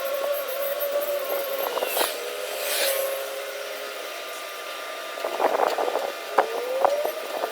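A machine whine held at a steady pitch, with scattered knocks and clicks; about six and a half seconds in the whine glides upward briefly, and a clatter of knocks picks up near the end.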